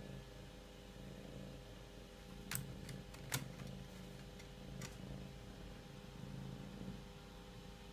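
A handful of sharp taps as a cat's paw strikes a computer monitor screen, the loudest about three and a half seconds in, over a faint steady hum.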